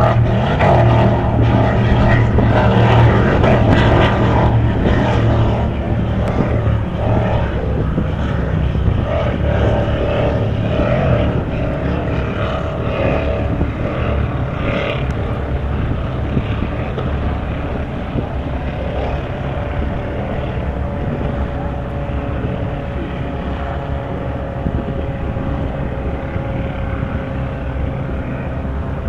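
Engines of offshore racing powerboats droning steadily across the water. The drone is loudest for the first few seconds, then eases a little as the boats run on.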